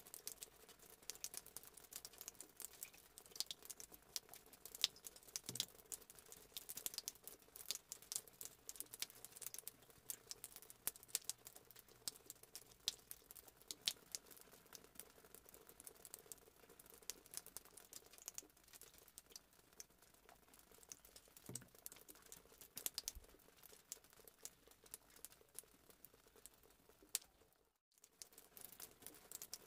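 Faint crackling and popping of hot oil in a wok, first with potato slices frying and then with a ground shallot-and-garlic paste sautéing. The crackle breaks off for a moment near the end.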